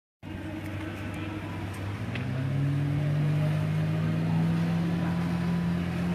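An engine running steadily, rising a little in pitch and growing louder about two seconds in, then holding.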